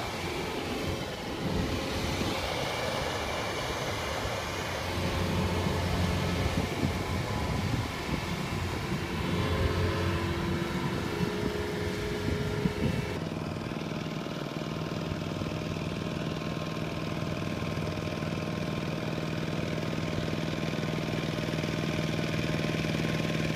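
Diesel farm machinery working in a muddy rice field. For the first half the engine sound is uneven and shifting. About halfway through it changes suddenly to a steady single-cylinder diesel note from a two-wheel walking tractor hauling a loaded trailer through mud.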